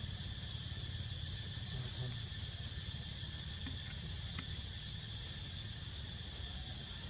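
Steady outdoor ambience: a constant hiss with an even insect drone, low wind rumble on the microphone, and a few faint clicks.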